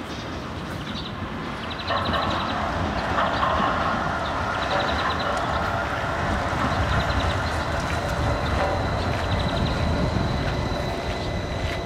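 Bombardier Flexity Swift articulated tram running on the rails, a steady rumble that grows louder about two seconds in as it draws near. A thin steady high whine comes in about halfway through.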